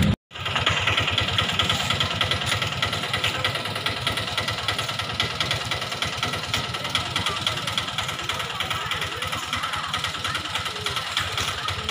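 A small engine running steadily with a rapid, even pulse, after a brief dropout in the sound right at the start.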